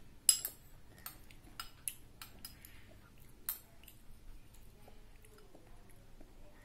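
Metal spoon clinking against a small ceramic bowl while someone eats, with a sharp clink about a third of a second in and about six lighter ones over the next three seconds, then only faint scraping.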